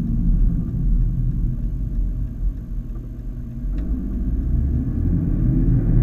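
Car engine and road rumble heard inside the cabin. It eases off as the car slows for a stop sign, then the engine note rises near the end as the car pulls away through a turn.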